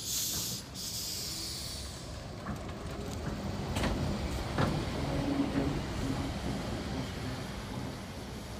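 Vintage trolleybus running past at low speed and drawing up at a stop: a steady low rumble of the vehicle, with a short hiss at the start and a couple of sharp knocks about four seconds in.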